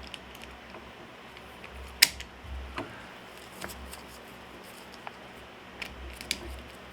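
Metal ratchet strap mechanism being released: a sharp click from the release catch and handle about two seconds in, followed by several lighter clicks and rattles as it is worked open.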